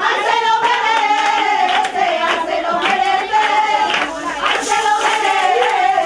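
Voices singing one long wavering melody together over steady rhythmic hand clapping (palmas).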